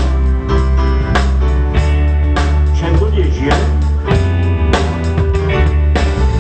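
Amplified live pop band playing a song during a sound check. A drum kit keeps a steady beat over a heavy bass line, with guitar.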